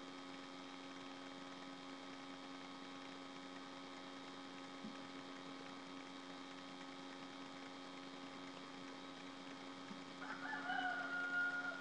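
Steady electrical hum with several fixed tones, and near the end a single drawn-out pitched animal call lasting about a second and a half, dipping slightly in pitch and then holding steady.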